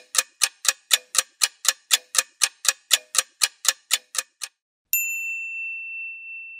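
Clock-ticking sound effect, about four ticks a second, marking time passing; it stops about four and a half seconds in. A single bright ding follows and slowly fades.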